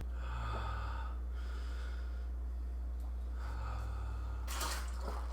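A man breathing heavily: two long breaths about three seconds apart, then a short, sharp gasp-like burst near the end. All of it sits over a steady low hum.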